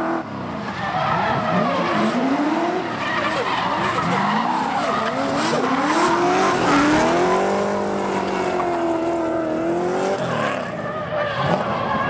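Two drift cars running in tandem: engines revving up and down over and over, several pitches overlapping, with tyres skidding and squealing.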